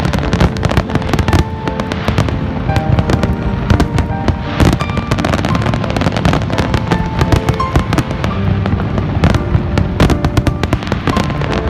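Fireworks display going off in a dense, continuous barrage of bangs and crackles, many a second, over a low rumble, with music playing underneath.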